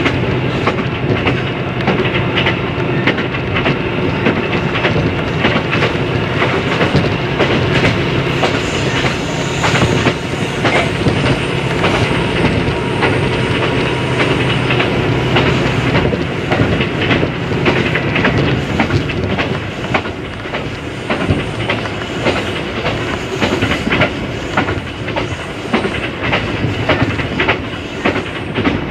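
A train running, heard from inside the carriage: a steady rumble with frequent clicks and clatter of the wheels over the rail joints. The low rumble eases a little about two-thirds of the way through.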